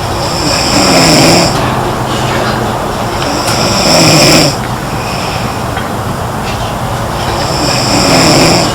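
A girl snoring in her sleep: three loud snores about three to four seconds apart, each a low droning breath with a hissing edge, over a steady background hiss.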